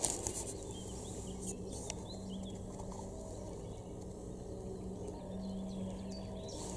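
Small birds chirping now and then over a steady low hum from the bait boat's electric motors as it runs back toward the shore.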